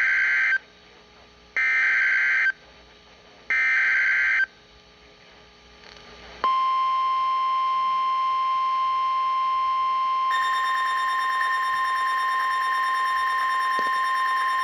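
Emergency Alert System SAME header: three bursts of warbling two-pitch data tones, each about a second long and about two seconds apart. About six and a half seconds in, the steady single-pitch National Weather Service 1050 Hz alert tone starts and holds for about nine seconds. A second, higher, slightly wavering tone joins it about halfway through.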